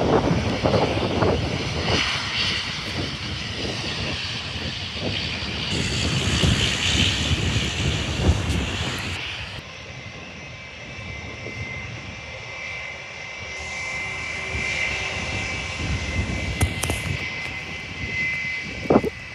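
Jet airliner engines running: a gusty, rumbling noise for the first half, then a steady high-pitched whine from about halfway in.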